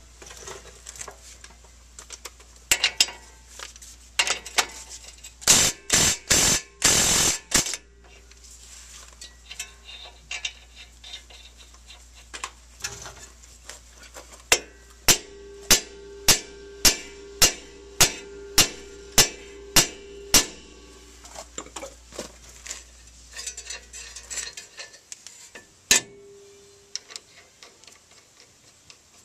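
Sharp metallic knocks and clicks from tool work. A cluster of short loud bursts comes about six seconds in, then a run of about a dozen evenly spaced strikes, roughly two a second, a little past the middle, over a low steady hum.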